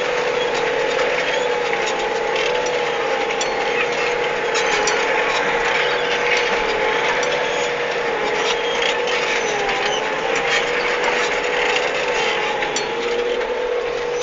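Case IH CVX 160 tractor running steadily under load while ploughing, with a steady whine that wavers slightly in pitch over the engine noise and scattered faint clicks.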